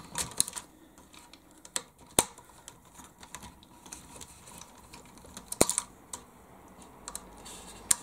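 Scattered small clicks and taps of a small screwdriver and fingers working screws out of a plastic RC truck chassis, with a sharp click about two seconds in and a short cluster of clicks a little past five and a half seconds.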